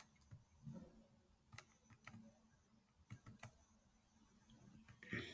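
Faint, irregular clicks of a computer being operated, a handful of short taps spread over a few seconds in near silence, with a slightly louder sound just before the end.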